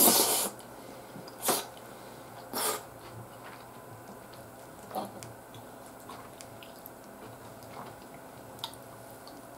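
Close-miked eating noises from a man eating omurice with a spoon: short, loud, hissing bursts of breath and mouth noise, one at the start, then about one and a half and nearly three seconds in, and a smaller one about five seconds in, with faint clicks of chewing and the spoon between them.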